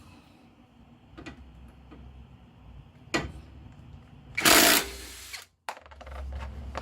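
Cordless impact wrench running in one short burst of about half a second, breaking loose the nut on a sway bar end link. A single sharp click comes a little over a second before it.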